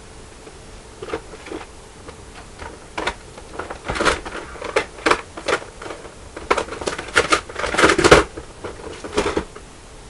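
Rummaging: irregular clicks, knocks and rustles of small objects being picked up and moved about. The clatter comes in scattered clusters, busiest and loudest near the end.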